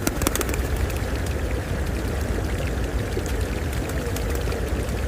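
Steady rushing water, with a few sharp clicks near the start.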